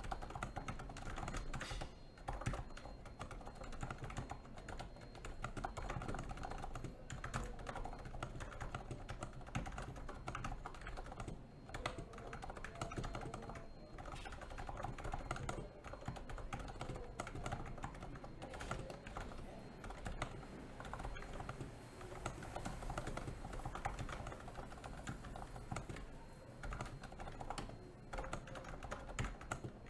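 Continuous fast typing on a NIZ Plum 87 tenkeyless keyboard with electro-capacitive switches: a dense stream of key presses with a few brief pauses.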